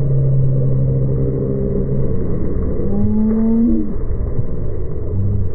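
Motorcycle engine running under a constant low wind rumble. Its note holds steady for about two seconds, then rises briefly about three seconds in.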